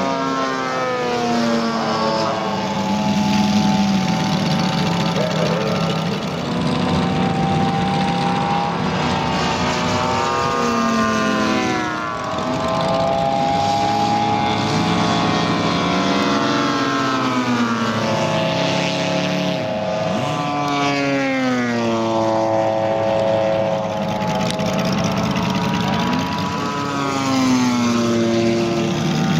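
Several large radio-controlled WW2 warbird models flying passes together, their propeller engines running at once, each note rising and falling in pitch as the planes come and go.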